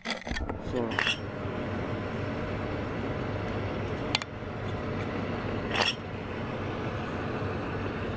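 Three short metallic clicks and clinks as the parts of a removed, rusted air switching valve assembly are handled and knocked together, over a steady hiss.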